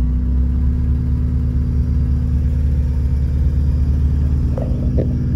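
Honda Civic engine idling steadily, heard from inside the cabin, with a few faint clicks near the end.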